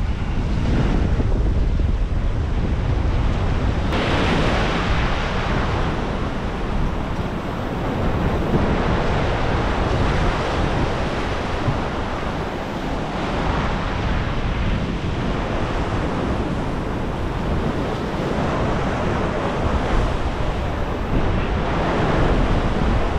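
Rough, choppy inlet surf churning and washing in surges, mixed with heavy wind buffeting the microphone.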